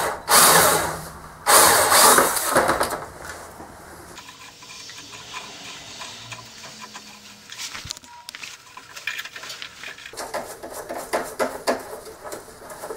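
Cordless drill spinning a countersink bit against steel in two short, loud bursts, chamfering the mouth of a freshly tapped bolt hole. After that it goes much quieter, with small clicks and scrapes as a hand tap is turned back through the threads.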